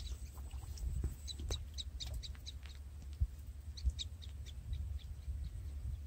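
Small birds chirping in short repeated calls, over a steady low rumble.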